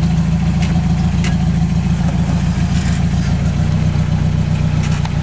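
Off-road vehicle's engine idling steadily, with a few faint clicks.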